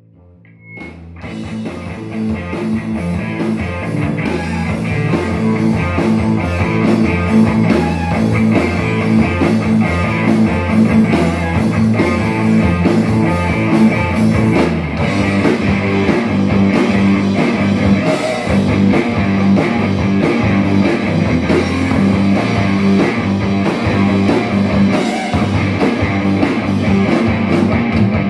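Live rock band playing without vocals: electric guitar, bass, drum kit and keyboard. The band comes in about a second in and builds over the first few seconds to a steady, full volume.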